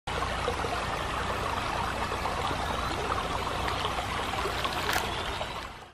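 Steady rushing noise with faint crackles and a low rumble, fading out near the end.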